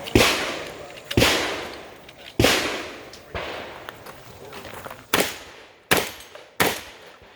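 Shotgun fired repeatedly, about seven shots, each ringing out with a long echoing decay. The first four come about a second apart; after a short pause, the last three come in quicker succession.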